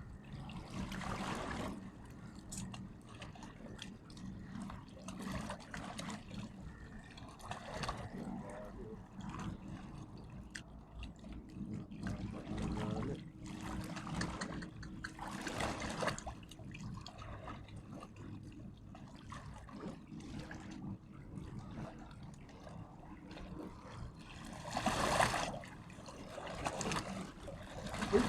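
Water trickling and splashing continuously, with irregular louder swishes, the loudest near the end.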